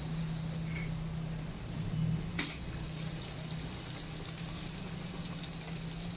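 Semi-automatic two-nozzle drink filling machine running, a steady low hum over a hiss, with one sharp click about two and a half seconds in.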